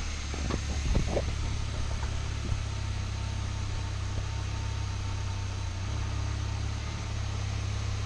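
VW Mk7 GTI's 2.0-litre turbocharged four-cylinder idling steadily, just started with fresh oil after an oil change, with a few faint clicks about a second in.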